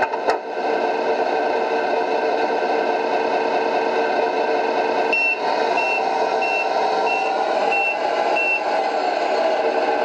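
Tamiya Scania R620 RC truck's MFC-03 sound unit playing a simulated truck diesel running steadily through its small speaker. About halfway through, the reversing beeper sounds six times at an even pace as the truck backs up.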